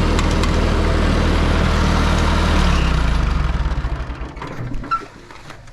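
Tractor engine running steadily with a low hum, then fading away over the last two seconds or so.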